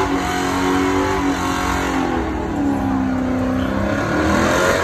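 Car engine held at high revs during a burnout, its pitch dipping about halfway through and climbing again near the end, with a noisy hiss over it from the spinning tyres.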